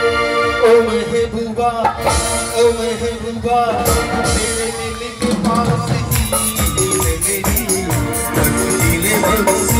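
Live stage band playing a Hindi song through a PA: held electronic keyboard chords with a man singing into a microphone, then drums and a shaker-like rattle coming in about five seconds in.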